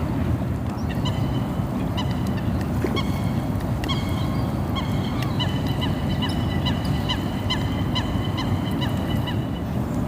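Canada geese honking: a rapid series of short honks from several birds, starting about a second in and stopping near the end, over a steady low background noise.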